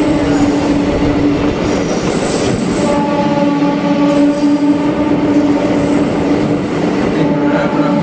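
Train running through a tunnel, heard from on board: a steady rumble of the running train with a steady hum over it, which dips for a second or so near the start.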